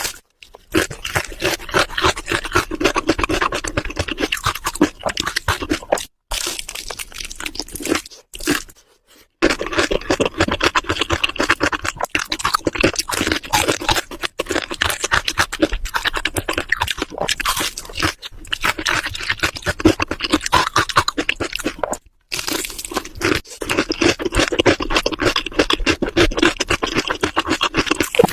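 Biting and chewing crispy fried chicken: loud, dense, rapid crunching with a few abrupt breaks where the sound cuts off.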